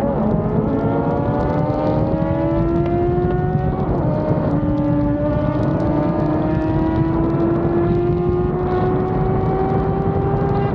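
Yamaha FZ6 Fazer 600 inline-four engine under way, its pitch rising slowly as it pulls. The pitch drops with an upshift about four seconds in and again at the end, over steady wind noise.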